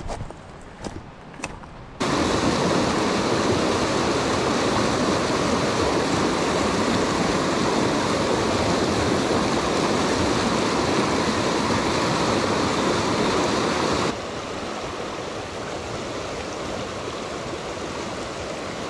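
Fast-flowing mountain stream rushing over rocks and logs, running high and fast. The first two seconds are quieter, with a few light footsteps on dry ground. Then the loud, steady rush comes in suddenly and drops to a softer rush about fourteen seconds in.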